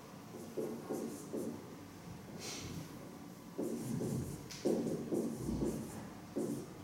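Marker pen writing on a whiteboard: short strokes coming in bursts with brief pauses between them.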